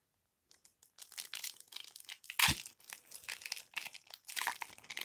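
Foil trading-card pack wrapper crinkling and tearing as it is ripped open by hand, starting about a second in, with one louder soft thump about halfway through.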